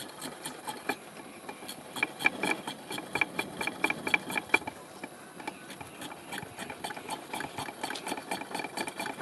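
Hand pump on a kerosene pressure stove's tank worked in quick, rhythmic strokes, about four clicking strokes a second, with a short pause about five seconds in. It builds pressure in the tank while the burner is being lit.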